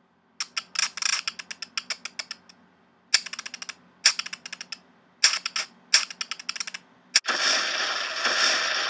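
Typing sound effect: five runs of quick key clicks, each run opening with a louder strike. About seven seconds in comes a sharp crack, then a loud, steady rushing blast, a fiery burst effect.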